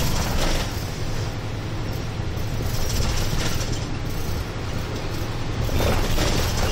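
Steady cabin noise inside a route bus on the move: a low engine hum with road and tyre noise.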